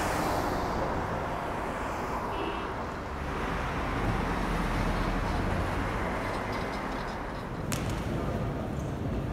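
Steady road traffic noise, an even hiss with a low rumble, with one brief click about three-quarters of the way through.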